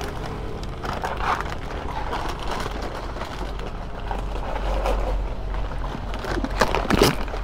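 Plastic dog-food packet crinkling as it is worked and torn open by hand, a few short rustles, the loudest near the end, over a steady low rumble.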